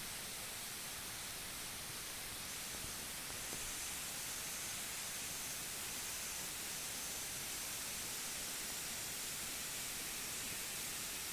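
Steady, even hiss of forest ambience with no distinct events, strongest in the high range.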